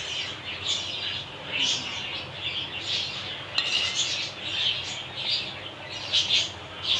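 Small birds chirping over and over in quick short calls, with light clinks of a metal spoon against a glass serving bowl.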